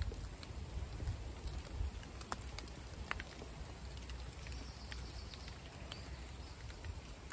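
Small wood fire in a tin stove crackling with scattered sharp pops, against a steady low rumble of wind buffeting the microphone.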